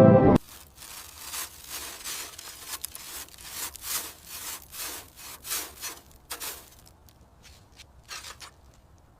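Hand abrading on a surface: rapid back-and-forth rasping strokes that thin out after about six and a half seconds, with a few last strokes near the end.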